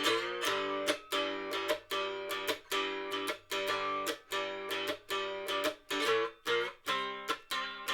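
Cigar box guitar played in a steady strummed rhythm, chords struck about twice a second and ringing between strokes.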